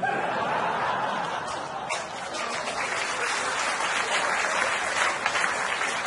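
Theatre audience applauding and laughing after a punchline, a dense, steady wave of clapping.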